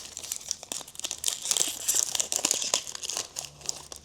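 Trading card pack wrapper being torn open and crinkled by hand, a dense run of sharp crackles and rustles.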